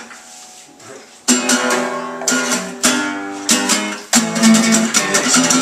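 Acoustic guitar strumming chords, quiet at first and then loud strokes from about a second in.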